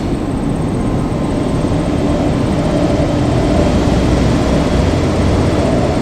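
KiHa 200 diesel railcar running, a loud steady low drone with a whine that comes in about a second in and grows louder.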